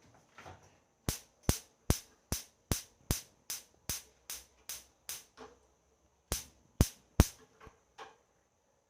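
Gas stove's spark igniter clicking over and over, about two and a half clicks a second, then a short pause and three more clicks, with the burner not catching. The cook thinks this means the gas cylinder has run empty.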